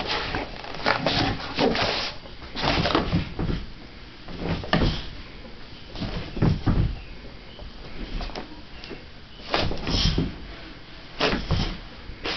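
A boxer dog romping on a rug and flattened cardboard: irregular thumps, scuffs and rustles of paws and body on the floor and cardboard, coming in uneven bursts.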